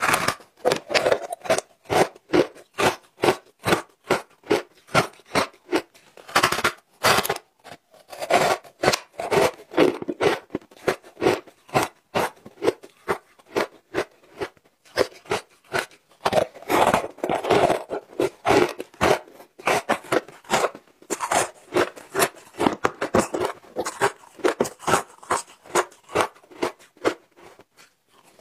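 Close-up chewing of matcha-powdered shaved-ice chunks: rapid, crisp crunching, about two or three crunches a second, as the ice breaks between the teeth.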